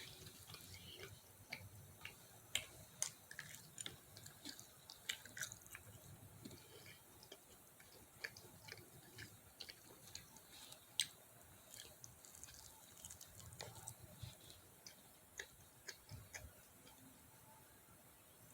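Faint chewing of fried chicken, with scattered small crunches and clicks throughout.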